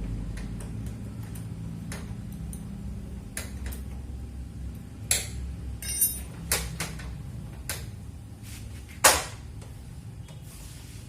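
Scattered sharp metallic knocks and clicks of hand tools and parts being handled on a cup-sealing machine under repair, the loudest about nine seconds in, over a low hum that fades in the first half.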